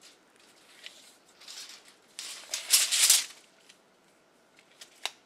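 Measuring tape being pulled out and handled against a boulder, giving a rattling hiss that is loudest around the middle, followed by two sharp clicks near the end.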